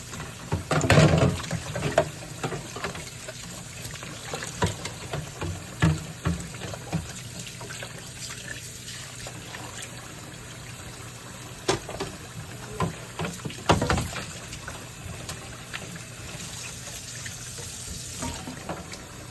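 Water running from a tap into a sink, with scattered knocks and clatters of things being handled in it; the loudest clatters come about a second in and again near the three-quarter mark.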